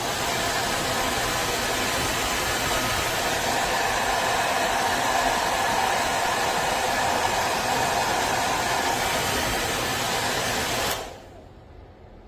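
AINA ionic hair dryer running, a steady airy blowing that is cut off abruptly near the end as it is switched off.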